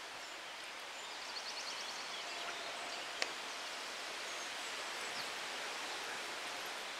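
Outdoor ambience: a steady rustle of wind and leaves with faint high bird chirps, including a short trill about a second in. A single sharp click about three seconds in.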